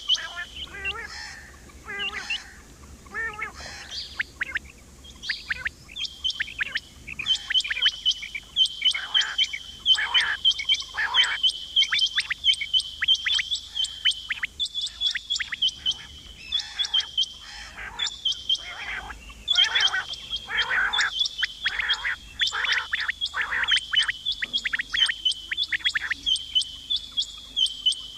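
Female quail calling: rapid runs of short, sharp, high chirps repeating throughout, over a thin, steady high note.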